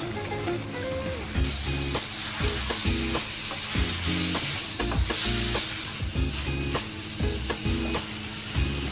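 Chicken livers frying in masala in a wok, sizzling, with a wooden spatula stirring and scraping against the pan in short clicks. The sizzle grows louder about a second and a half in. Background music plays underneath.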